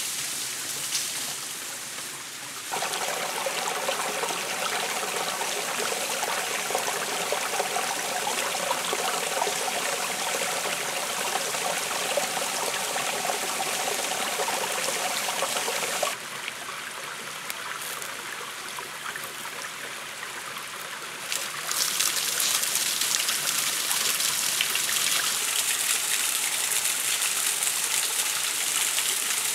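Flowing water, changing abruptly between takes: a shallow stream running and trickling over rocks, then, from about twenty seconds in, a louder, hissier splashing of water falling from a bamboo pipe.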